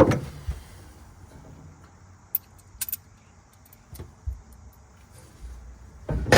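A few short metallic clicks and clinks of a bolt and washer being handled, between a dull thump at the start and a louder knock about six seconds in.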